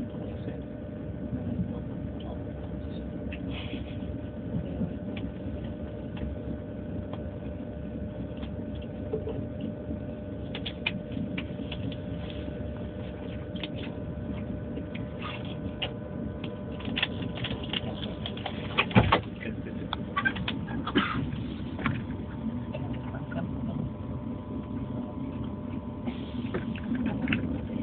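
Steady running rumble of a moving train heard from inside the carriage, with a faint steady hum and scattered knocks and rattles; the loudest knock comes about two-thirds of the way through.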